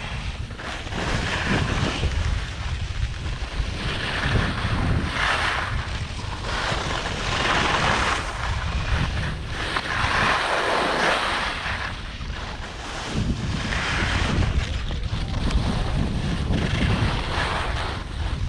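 Wind buffeting the microphone during a ski run, with the hiss of skis on snow swelling and fading every two to three seconds as the skier turns.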